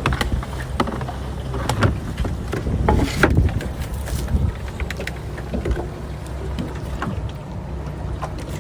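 Fishing boat's engine running steadily at a low drone, with scattered knocks and clatter over it.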